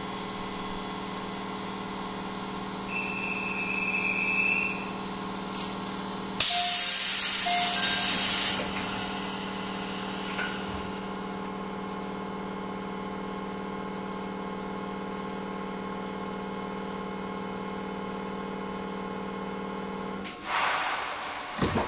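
JR Central 211-series electric train standing still: a steady electrical hum with several fixed pitches from its onboard equipment. A loud hiss of released air comes about six seconds in and lasts about two seconds, and louder noise starts to build near the end.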